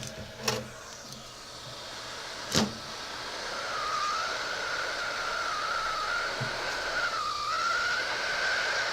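Heat gun switched on with a sharp click about two and a half seconds in, then its blower running with a steady hiss and a slightly wavering whine, heating to melt the lens adhesive.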